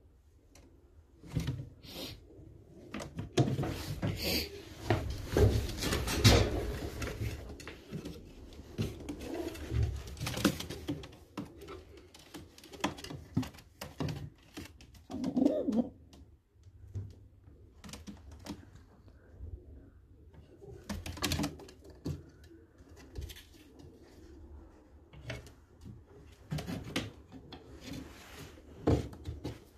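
Baku fighting pigeons cooing in low, repeated calls, with scattered knocks and rustles among them that are loudest about six seconds in.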